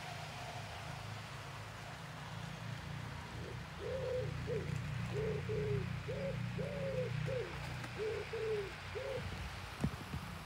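Pigeon cooing: a phrase of about a dozen soft coos, each rising and falling, starting about three and a half seconds in, over a low steady hum.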